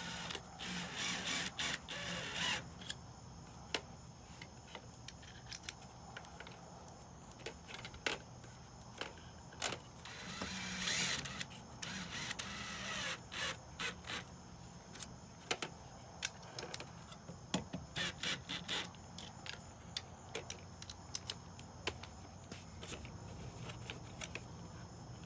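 Clicks and knocks of hand work on an exterior GFI outlet and its weatherproof cover, with two short runs of a small electric motor, about a second in and again about ten seconds in.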